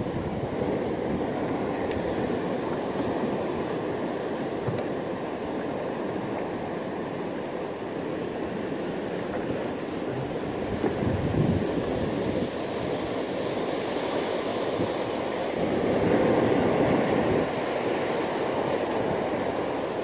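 Steady rushing of sea waves and wind, swelling louder twice, about eleven and sixteen seconds in.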